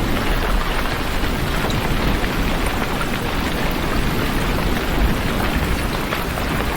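Heavy rain falling steadily, a dense even hiss with a low rumble beneath and scattered drop ticks.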